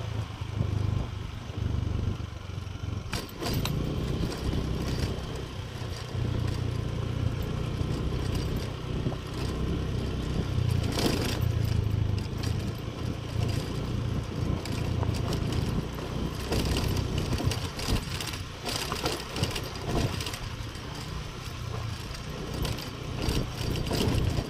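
Small motorcycle engine running at low speed while riding over a rough dirt road, with scattered rattles and knocks from the bumps.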